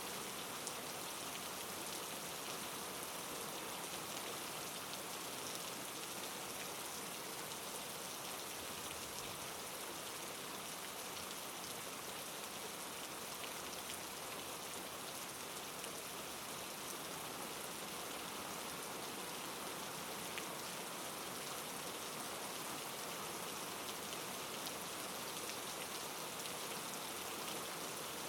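Steady rain falling, a constant even hiss of drops with a few faint ticks scattered through it, played as a white-noise background track.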